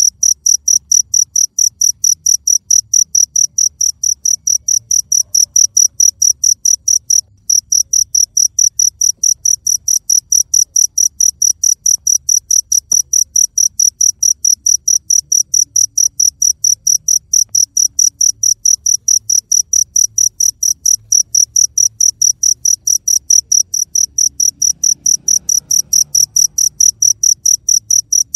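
A cricket chirping steadily, a high, evenly spaced chirp about five times a second, with one short break about seven seconds in.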